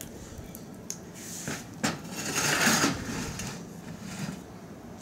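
A few knocks, then a scraping noise lasting about a second, as a square floor tile is set and slid across the rim of a metal drum charcoal burner to cover the fire.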